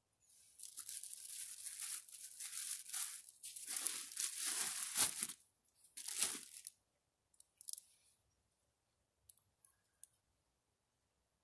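Crisp lettuce leaves being torn apart by hand, crackling and crunching for about five seconds, with one more short tear about six seconds in and a few faint ticks after.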